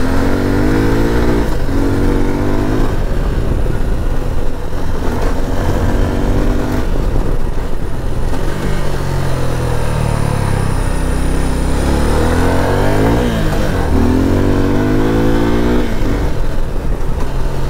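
Suzuki V-Strom SX 250's single-cylinder engine revving up and easing off several times as the bike is ridden over a rough dirt trail, its pitch rising and falling over a steady low rumble. The throttle is opened hard on the dirt, trying to spin the rear wheel, which keeps gripping.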